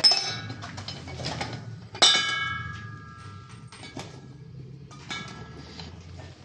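Steel parts knocking and clanging. The loudest clang, about two seconds in, rings for about a second, and a fainter ringing clang comes about five seconds in, with light knocks in between.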